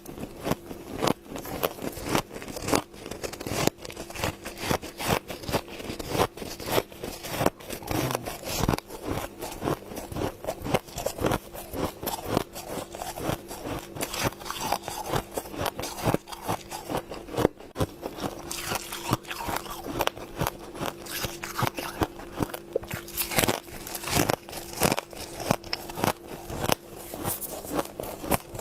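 Close-up mouth sounds of humidifier frost being bitten and chewed: dense, irregular crunches, several a second, with a faint steady hum underneath.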